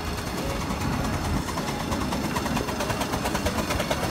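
Little Puffer steam train running, a steady rumble with a rapid, regular beat coming in about two-thirds of the way through.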